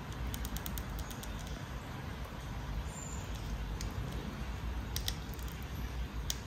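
Long-haired Syrian hamster gnawing a small hard round biscuit held in its paws: sparse, crisp crunching clicks, a quick run of them about half a second in and a few more near the end.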